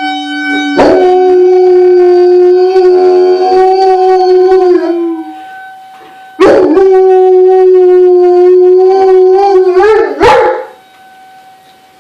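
A dog howling along to a tornado alarm: two long howls, the first starting about a second in and sliding down at its end, the second starting about six seconds in and breaking into wavering yips as it ends. The alarm's steady tone runs underneath.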